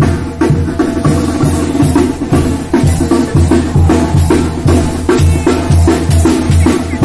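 Brass band playing a dance tune: repeating tuba bass notes under a quick, steady beat of drum strikes.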